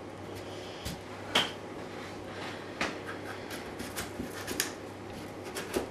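Knife cutting through a raw sweet potato, a handful of separate sharp knocks and clicks as the blade goes through and meets the board.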